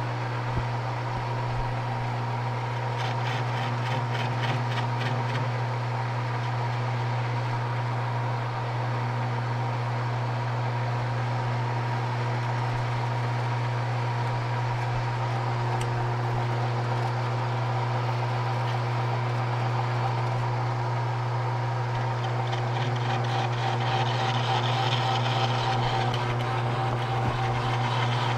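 Metal lathe facing the end of a thick 4140 alloy-steel bar: a steady machine hum with the scraping of the tool in the cut. The sound gets a little louder near the end.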